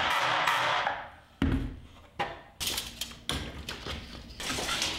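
Wooden frame pieces being handled on a workbench during a dry-fit test assembly: about a second of rubbing noise, then one heavy wooden thump about one and a half seconds in and several lighter knocks.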